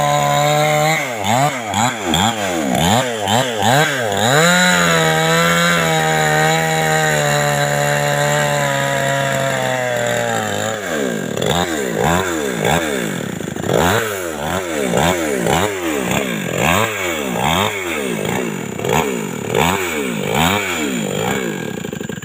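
Two-stroke chainsaw ripping lengthwise along a felled log, engine held at high speed under load. About ten seconds in the pitch drops and the engine speed rises and falls over and over, then the saw stops at the very end.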